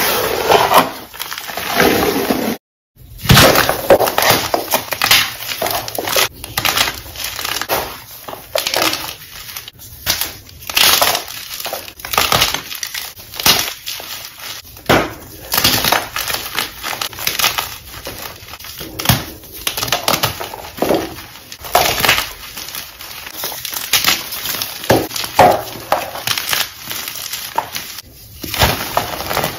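Hands crushing and crumbling dyed chalk blocks into powder: a dense, irregular run of crisp crunches and crackles, with a brief break about three seconds in.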